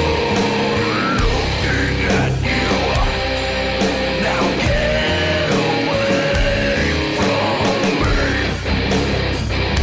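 Loud heavy rock music: distorted electric guitars over drums, with cymbal hits on a steady beat.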